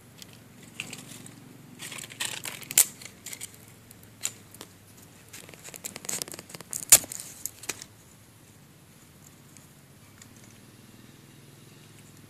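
Dry leaf litter and twigs crackling and rustling as a stick is pushed through them, in two spells of crackling, each with a sharp snap. It dies away about two-thirds of the way through.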